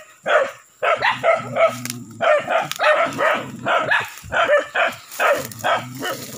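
Dogs barking over and over, about two or three barks a second, after a short pause at the start.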